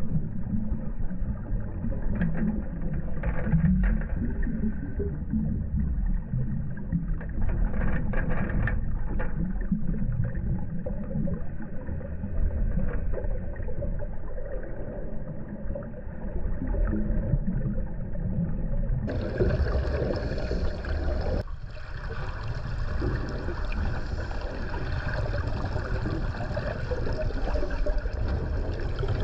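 Underwater noise heard through a camera housing: a steady low rumble of water, with a few short bursts of bubbling. About 19 seconds in the sound turns suddenly brighter and fuller.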